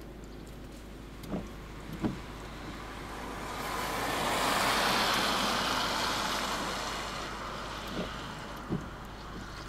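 A car passing by on a road: a broad rush of tyre and engine noise that builds for a couple of seconds, peaks midway and fades away. A few short knocks come in pairs before and after it.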